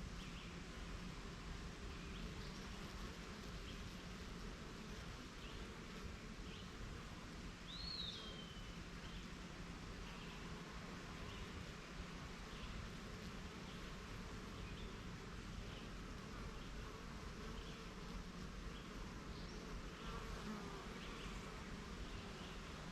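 Honeybees buzzing steadily around a beehive, with faint scattered chirps and one brief higher bird call about eight seconds in.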